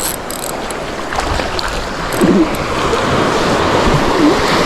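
Steady rush of wind on the microphone and sea water washing around a kayak, with two brief faint vocal sounds about two seconds in and near the end.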